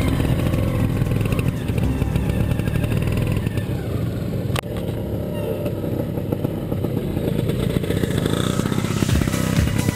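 Classic two-stroke trials motorcycles running at low revs close by as they ride a hillside section, one bike after another. There is a single sharp click about halfway through.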